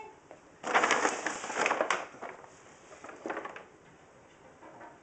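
Paper grocery bag crinkling and rustling as a cat moves inside it. A loud stretch of rustling starts about a second in and lasts just over a second, with a shorter rustle a little after three seconds.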